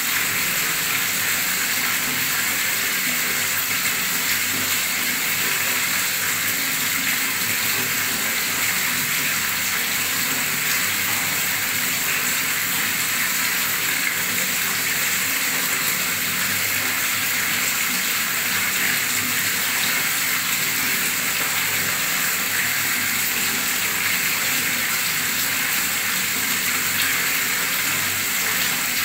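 Water pouring in a steady stream from a tap into a pool of water, splashing and bubbling without a break.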